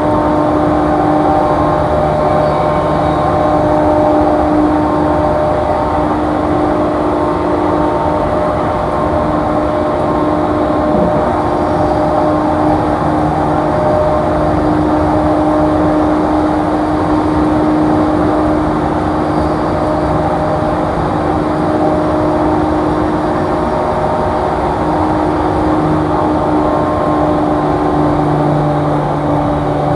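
JR East E235 series electric train running at a steady speed, heard from inside the passenger car. A continuous rumble of wheels on rail carries a steady hum from the traction motors.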